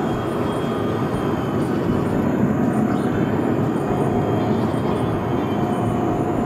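Jet noise from a Boeing 777-300ER's two GE90-115B turbofans at takeoff thrust as the airliner accelerates down the runway. A steady roar that grows a little louder over the first couple of seconds, with a faint steady whine above it.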